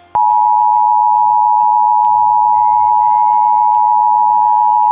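Emergency Alert System attention signal: a loud, steady two-tone alarm pitched just under 1 kHz that cuts in abruptly a fraction of a second in, announcing an emergency warning interrupting the broadcast.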